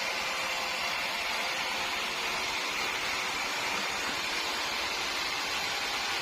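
Sawmill machinery running with a steady, unchanging noise, mostly a hiss with a faint hum beneath it.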